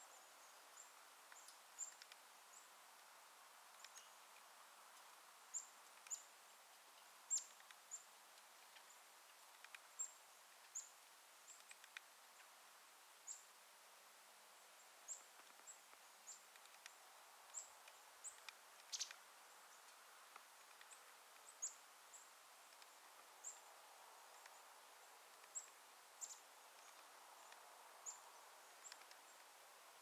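Woodpecker pecking at a suet block in a wire cage feeder: short, high ticks at uneven intervals, about one or two a second, over a faint hiss.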